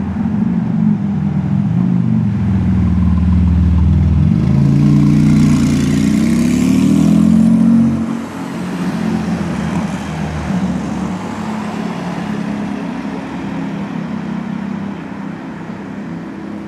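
Tuned 850 hp Porsche 991 GT2 RS twin-turbo flat-six running at low revs, then accelerating with a rising engine note from about four seconds in. The sound breaks off suddenly near the halfway point, and the engine is quieter and steadier after that as the car drives away.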